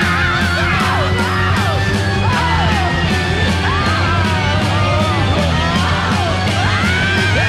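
Background rock music with a shouted, sung vocal over a steady beat.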